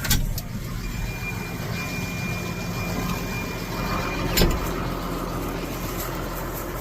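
Tractor engine running steadily, with a sharp click near the start and a heavier knock about four and a half seconds in; a thin high whine sounds over it for a few seconds in the middle.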